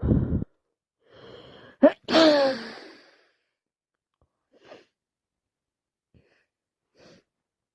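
A person with a cold sneezing: a breathy intake about a second in, then one loud sneeze about two seconds in that falls in pitch as it trails off, followed by a couple of faint sniffs. A short loud burst sounds right at the start.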